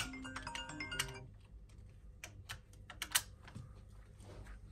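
A string of light, irregular clicks and taps, with a brief run of short tones in the first second; no shot is fired.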